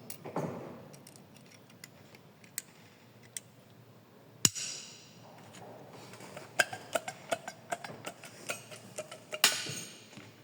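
Scattered sharp clicks and knocks of hard parts being handled, with one louder knock about four and a half seconds in, a quick run of clicks later on, and a louder clack near the end.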